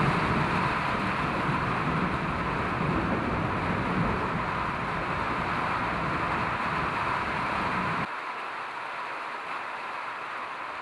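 Steady rain hiss with low rolling thunder beneath it; the rumble stops abruptly about eight seconds in, leaving only the rain.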